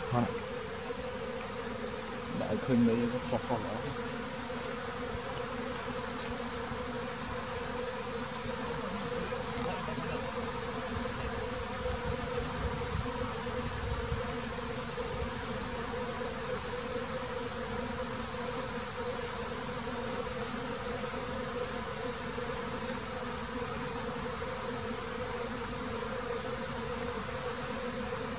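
Honeybees buzzing steadily in a dense hum, swelling briefly louder about three seconds in. The beekeeper takes this busy hive activity for a sign of bad weather coming.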